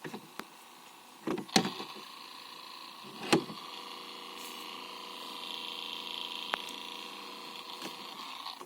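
A small electric motor, the Dodge Caliber's heater flap-position motor, whirring steadily and growing louder over the second half. A few sharp clicks or knocks sound over it, the loudest about one and a half and three and a half seconds in.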